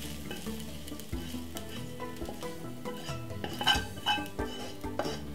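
Wooden spatula scraping and knocking fried rice out of a hot wok into a bowl, with irregular taps of wood on the pan and a light sizzle from the hot rice.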